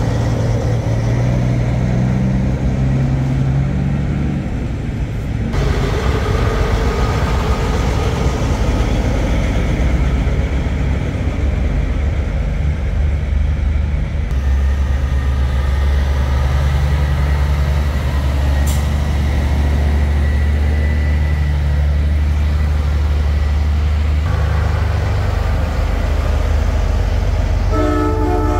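Semi trucks' diesel engines running as the rigs drive slowly past one after another. A truck horn sounds briefly, several tones at once, near the end.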